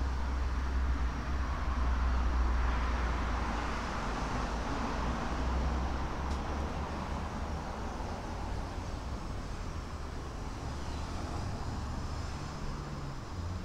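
Passing vehicle noise over a steady low rumble: the noise swells about two seconds in and slowly fades away.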